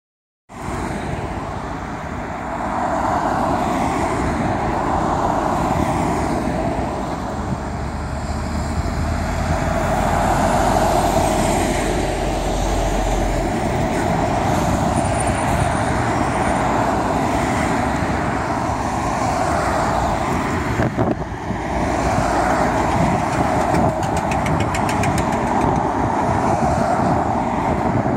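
Road traffic: cars and lorries driving past on a multi-lane road, a steady wash of tyre and engine noise that swells and fades as vehicles go by.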